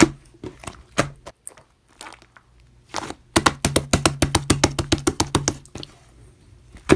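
Slime being worked by hand, giving sharp clicks and pops: a few scattered ones, then a quick run of about six or seven a second in the second half. A louder single knock comes at the start and another near the end.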